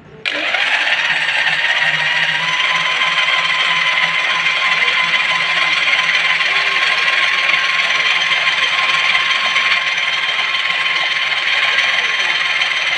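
Heavy electric drill driving a hone inside a cylinder liner of a Massey Ferguson 385 engine block, polishing the liner. It starts abruptly just after the beginning and then runs loud and steady, with a constant whine settling in after a couple of seconds.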